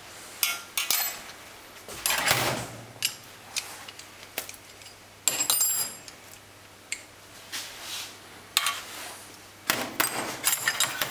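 Small steel injector parts and hand tools clinking and clattering against a stainless steel parts tray. There are separate sharp clinks, some ringing briefly, with a denser clatter about two seconds in and a quick run of clinks near the end.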